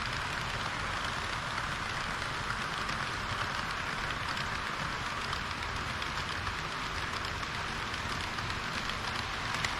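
HO-scale model train running on the layout track: a steady rushing hiss of wheels rolling on the rails, with faint fine clicks and a low rumble underneath.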